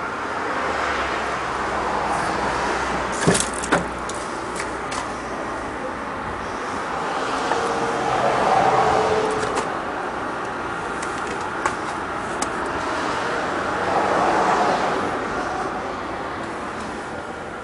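Steady road traffic noise, swelling twice as vehicles pass, about eight and fourteen seconds in. Scattered sharp clicks and knocks sit over it, the loudest two close together about three seconds in.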